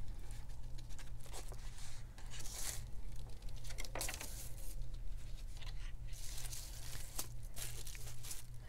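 Rustling and crinkling of coffee-dyed paper and stencils being handled, peeled apart and set down, in irregular bursts with a few light clicks, over a steady low hum.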